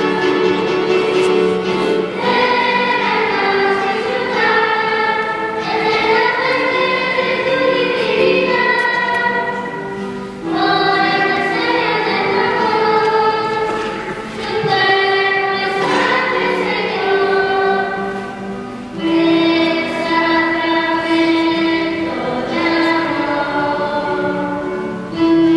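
A choir singing a hymn with several voices in parts, each note held a second or two.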